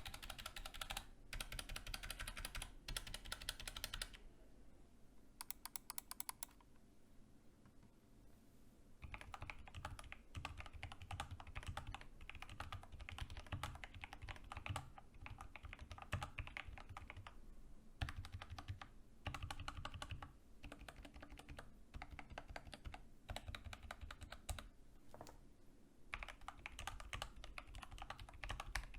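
Typing on a Kemove DK61 60% mechanical keyboard with lubed Gateron Brown switches, tape mod, packing-foam mod and O-rings under the keycaps: a sound test of the modded board. Runs of quick keystrokes broken by short pauses, with a quieter, sparser stretch about a quarter of the way in.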